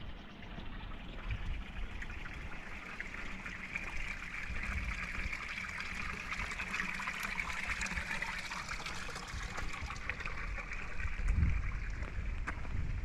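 Running water trickling steadily, growing louder in the middle and easing off again, with low wind rumble on the microphone and a stronger gust near the end.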